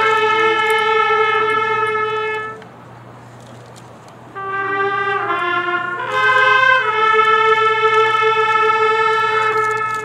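Brass fanfare on bugles or trumpets: a long held note that breaks off, then a short phrase of quicker notes rising into a second long held note.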